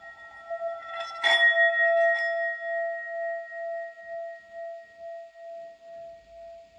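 Metal singing bowl struck with its wooden stick about a second in, with a lighter knock a second later. It then rings on in one sustained tone with higher overtones, wavering and pulsing as it slowly fades.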